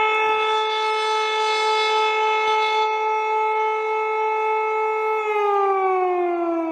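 Civil-defence-style warning siren holding one steady wailing tone, then winding down with a falling pitch from about five seconds in.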